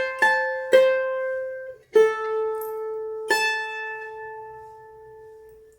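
Bandolim (Brazilian mandolin) played: a few quick plucked notes, then a note struck about two seconds in and another just after three seconds, left to ring and fade away as the closing notes of a tune.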